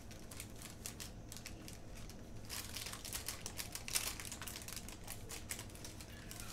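Paper sticker flakes and a sticker sheet being handled and pressed onto a planner page: light rustling and crinkling with small taps, busier from about two and a half seconds in, with one sharper tap about four seconds in.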